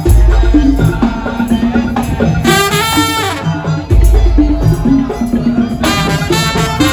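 Madurese daul percussion ensemble music: drums, wood blocks and rattles keep a busy rhythm under a melody line. Deep bass hits come in at the start and again about four seconds in.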